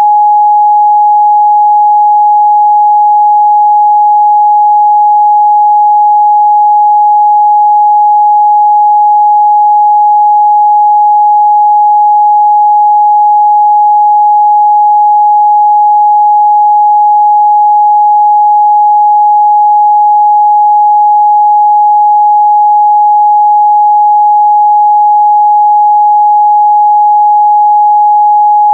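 Steady pure sine-wave test tone at 836 Hz, held loud and unchanging with no other sound.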